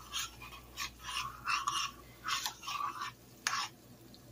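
Spoon stirring melting butter and seasoning in a pot, a series of short, irregularly spaced scraping strokes against the pot.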